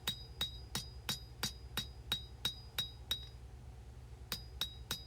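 Blacksmith's hammer striking hot 1095 high-carbon steel on an anvil while drawing out a knife blade: even blows about three a second, each with a short high ring. The blows pause for about a second partway through, then resume.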